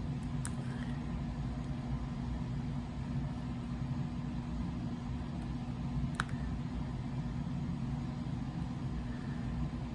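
Steady low mechanical hum, with a faint click about half a second in and a sharper click about six seconds in.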